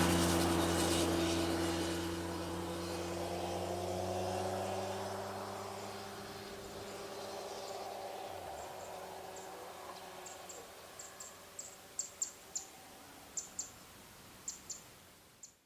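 A vehicle engine's steady hum slowly fading away as it drives off into the distance. In the second half, a series of short, very high chirps repeats in irregular clusters.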